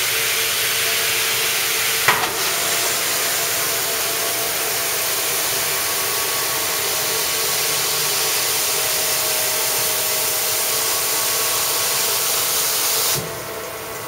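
Rinse water spraying from the spray bars of a semiconductor wet bench's quick dump rinse (QDR) tank as its rinse cycle starts: a steady loud hiss with a single click about two seconds in. The spray cuts off sharply near the end.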